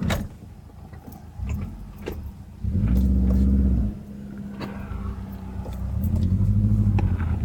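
Car sounds heard from inside the cabin: a low hum that twice rises into a loud, steady motor drone for about a second, the first starting and stopping abruptly, with scattered clicks and knocks.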